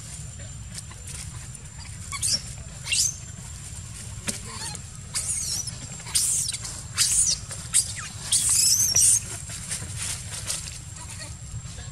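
Macaque screaming in short, high-pitched shrieks that come in bursts, starting about two seconds in and thickest in the second half, while one monkey is pinned down in a rough tussle.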